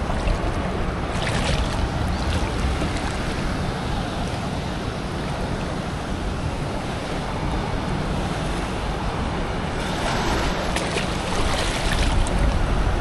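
Ocean surf washing around, with wind rumbling on the microphone. The rush of water swells briefly about a second in and again a little before the end.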